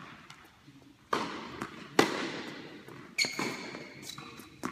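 Tennis ball struck by rackets and bouncing on a hard indoor court during a rally: four sharp strikes about a second apart, each echoing through the hall, the second one the loudest.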